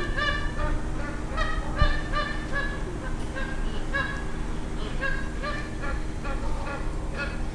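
A flock of magpie geese honking, many short calls overlapping and repeating several times a second.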